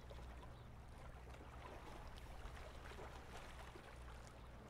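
Faint lake water lapping on a rocky shore, an even low wash with a steady low rumble underneath and a few faint ticks.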